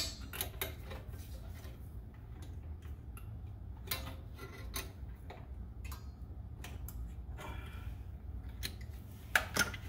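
Light, irregular metallic clicks and clinks of a rear drum-brake spring and its hardware on a 2000 Honda Civic being worked off by hand, with sharper clicks near the start, about four seconds in, and near the end.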